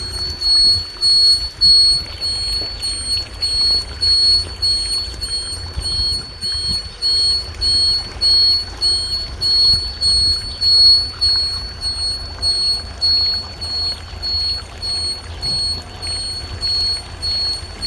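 Electronic ground-water detector (WD-SWIZZ 3D) beeping during a scan: a high-pitched beep repeating evenly about twice a second, over a low rumble.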